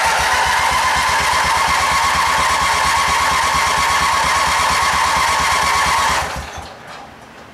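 Briggs & Stratton engine of a 1994 AYP 18.5 HP lawn tractor being turned over by its electric starter on a jump start from a truck: a loud, fast, even mechanical beat that holds for about six seconds, then winds down and stops.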